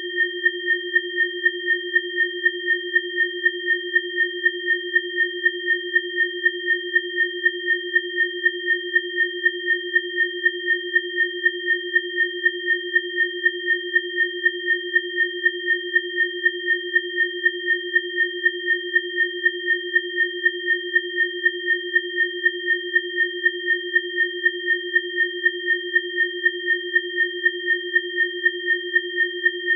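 Electronically generated biofrequency tones: three steady pure tones, a low one and two high ones, held unchanged. The low tone and the middle tone pulse evenly, about three times a second.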